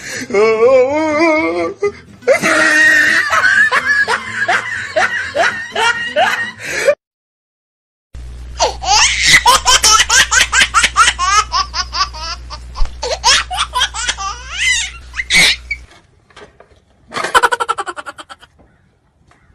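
Loud, repeated human laughter in quick pulses, broken by about a second of silence roughly seven seconds in, then dying away near the end after one last short burst.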